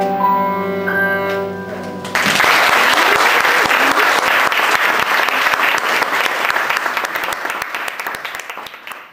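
Viola and piano hold a final sustained note, cut off about two seconds in by audience applause, which goes on and fades away near the end.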